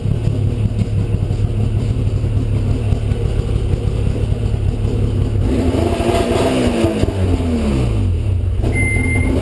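Snowmobile engine running at idle with a steady low rumble, then revved up and down several times in the second half.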